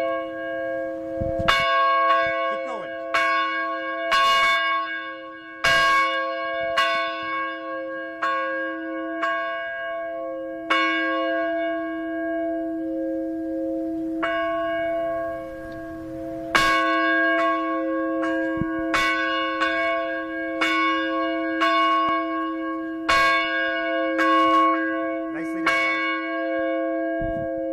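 Tower bell rung hard by pulling, struck roughly once a second, each stroke ringing on into the next so the deep tone never dies away. The strokes come unevenly, with a gap of about two seconds a little past halfway.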